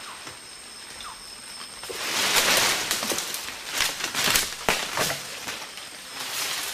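Leaves and branches rustling and snapping as orangutans climb through the rainforest canopy: a rushing swell of foliage, then a run of sharp cracks and swishes, over a faint steady high insect drone.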